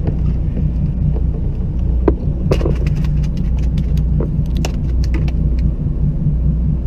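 Fishing boat's engine idling with a steady low drone, with scattered light clicks and knocks on deck between about two and a half and five seconds in.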